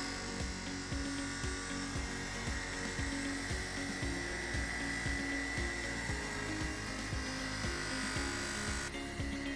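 Steady high whine of a motor-driven cloth buffing wheel polishing steel pliers, under background music with a regular beat.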